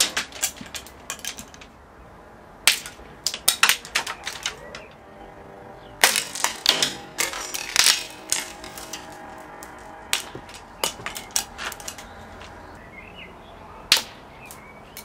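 Ripe wisteria seed pods snapping open, a scattered run of sharp cracks and clicks that come in clusters every few seconds.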